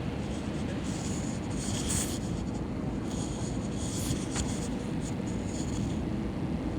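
Steady low rumble inside the cabin of an Airbus A321. Short bursts of scratchy rustling close to the microphone come about a second in and again around three to four seconds in, with a sharp click among them.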